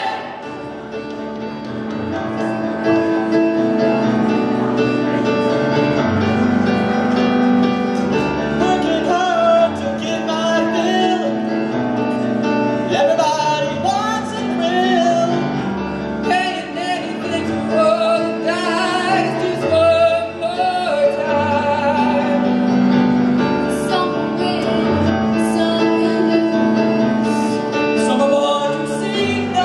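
A mixed student vocal group of girls and boys singing a pop song in unison and harmony, accompanied by live grand piano chords.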